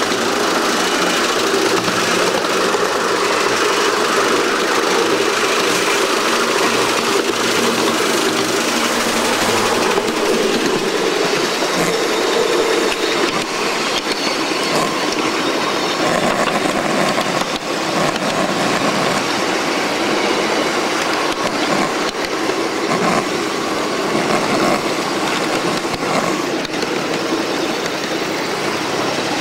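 Ridable-scale live steam Shay locomotive running along the track with a steady, loud running noise, passing through a corrugated metal culvert tunnel in the first part.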